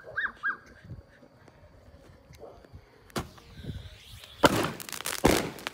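Fireworks exploding: a sharp bang about three seconds in, then a rapid cluster of loud bangs and crackling near the end.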